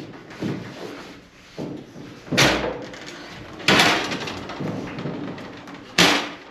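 Heavy truck bed assembly being shifted into place: a series of clunks and bangs, the loudest about two and a half, nearly four, and six seconds in, each dying away quickly.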